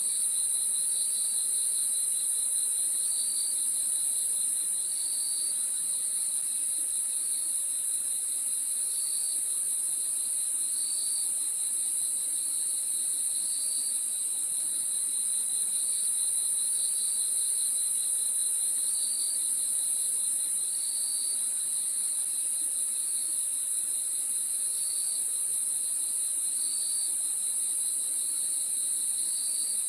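Crickets chirping in chorus: a steady high-pitched trill over a lower, rapidly pulsing trill, with a short chirp repeating about every two seconds.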